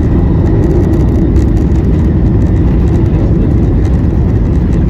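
Steady, loud rumble of a Boeing 737-900ER heard from inside the cabin: engine and airflow noise, heavy in the low end with a fainter hiss above.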